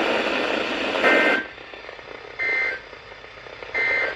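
Radio static hiss that cuts off about a second in, then three short two-tone data bursts about 1.35 s apart. These are the EAS SAME end-of-message (NNNN) code that closes a NOAA Weather Radio warning broadcast.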